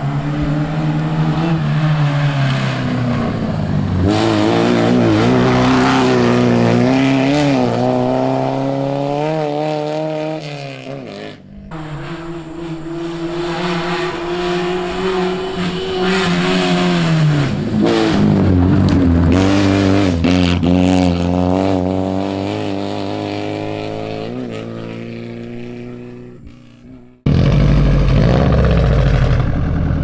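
Rally car engines at full throttle on a gravel stage, the pitch climbing and falling again and again as the cars come through. The sound breaks off briefly about eleven seconds in before another car is heard. Near the end it cuts to a lower, steadier engine rumble.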